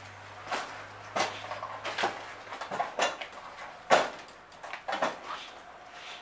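A scooter with a steel canopy frame being pushed over a porch step onto tiles: a series of knocks and rattles, the loudest about four seconds in.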